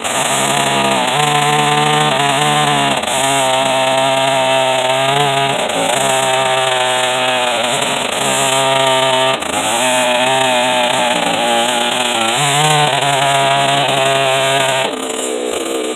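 Two-stroke chainsaw ripping lengthwise through red oak on a tiny cutter chain, the engine running loud and its pitch dipping and recovering over and over as the cut loads it. The sound cuts off suddenly at the end.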